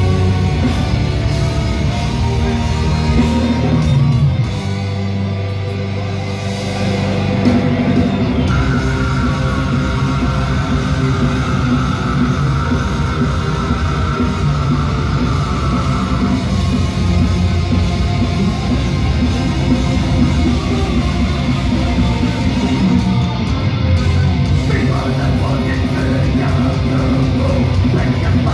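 Heavy metal band playing live, heard from within the crowd: distorted electric guitars, bass, drums and keyboards with a vocalist. The music drops to a thinner, quieter passage about four seconds in, comes back in full about eight seconds in, and a high note is held for several seconds after that.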